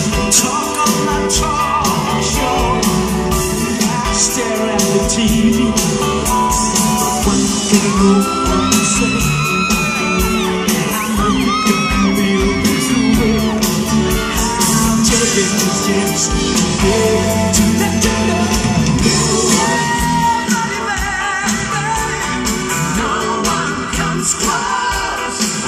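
Live pop-rock band playing with a male lead vocalist singing and holding long notes, heard loud from the audience.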